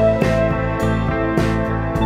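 Background guitar music with a steady beat.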